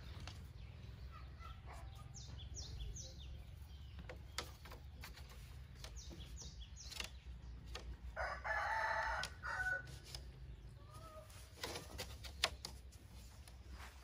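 A rooster crows once, a bit past the middle. Before it come two quick runs of three high falling chirps from small birds, with scattered light knocks throughout.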